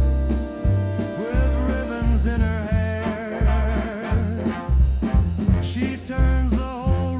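Swing-style dance band music in an instrumental passage: a steady bass beat under a wavering melody line.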